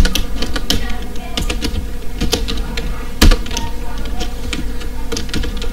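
Computer keyboard typing: irregular key clicks, with one louder key strike about three seconds in, over a steady low hum.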